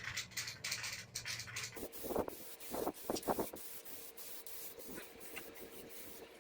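Aerosol spray paint can: the mixing ball rattles as the can is shaken, then about two seconds in a steady spray hiss as paint is sprayed.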